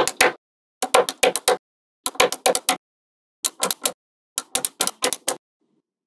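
Small metal magnetic balls clicking sharply as a block of them is snapped onto a larger magnetic-ball structure, in quick runs of four to six clicks about once a second, with silence between the runs.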